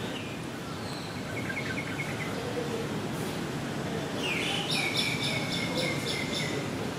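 A small bird chirping in quick repeated notes: a short, faint run about a second and a half in, then a louder run of about eight notes, roughly four a second, from about four seconds in, over a steady outdoor background hum.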